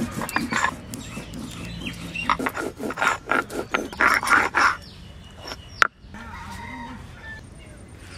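A stone muller rubbed back and forth on a flat grinding stone (sil-nora), grinding cumin seeds into paste in quick rasping strokes. The strokes stop about five seconds in. A single sharp click follows, then quieter scraping as the paste is gathered off the stone by hand.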